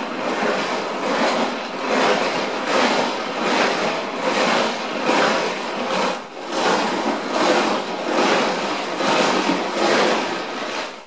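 Brass rifle cases and stainless steel pins rattling and sloshing in water as a hand-cranked rotary media separator's basket is turned, in an even pulsing rhythm that stops abruptly at the end. The turning washes the pins out of the brass.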